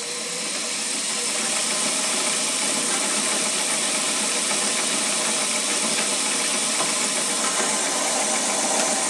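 Milling machine spindle running steadily while a drill bit is fed into an aluminum part and withdrawn.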